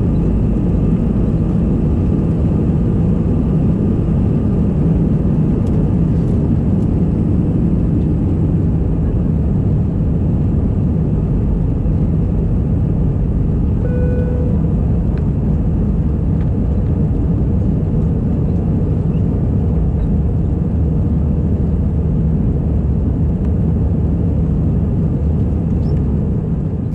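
Cabin noise of an Airbus A319 on its takeoff roll and climb-out, heard at a window seat over the wing: the engines at takeoff thrust and the air rushing past make a loud, steady low rumble. A brief tone sounds about halfway through.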